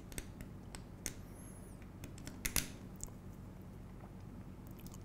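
Small steel M3 hex cap screws clicking against the aluminium C-channel as they are picked from a pile and dropped into its holes: a scatter of light metallic clicks, the loudest about two and a half seconds in.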